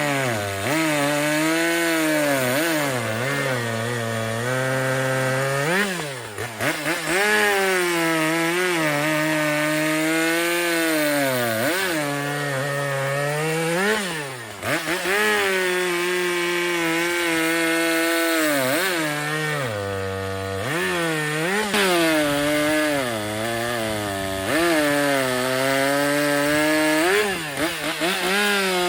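Stihl MS400.1 two-stroke chainsaw cutting down through Sitka spruce under pressure from the dogging teeth. The engine pitch sags as it loads up in the cut and recovers again, with a few brief drops in level between cuts.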